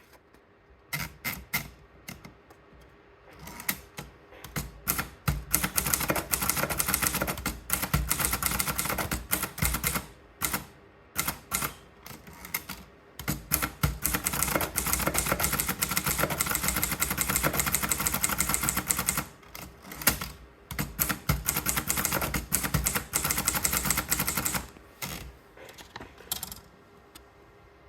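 Swissa Piccola portable manual typewriter being typed on: scattered key strikes at first, then fast runs of clacking keys broken by short pauses, thinning to a few single strikes near the end.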